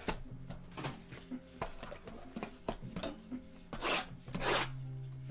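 Cardboard trading-card boxes being handled on a tabletop: scattered taps, knocks and slides, with two short rasping rubs or tears of cardboard about four seconds in.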